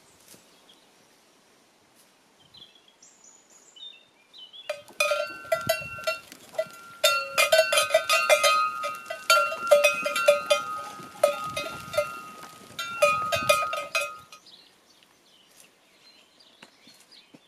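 Bells worn by grazing livestock clanking irregularly for about ten seconds, starting about five seconds in. Each strike rings on at its own fixed pitch, so more than one bell may be sounding.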